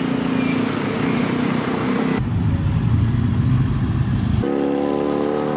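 Busy city street traffic: cars and motorcycles running past. The sound changes abruptly twice, and near the end a steady engine drone takes over.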